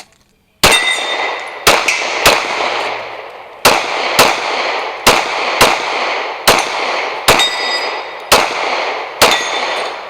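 A string of about eleven pistol shots fired during a timed stage, several of them in quick pairs about half a second apart, with short pauses between strings.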